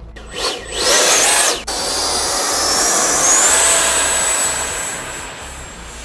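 Electric ducted fan of an RC model jet spooling up to a high, rising whine over a rushing hiss, then holding a steady high pitch at full throttle and growing fainter as the jet moves off for its takeoff.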